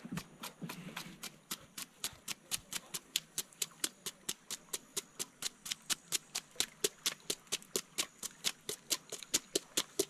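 A knife blade scraping the scales off a large peacock bass in quick, even strokes, about four scrapes a second.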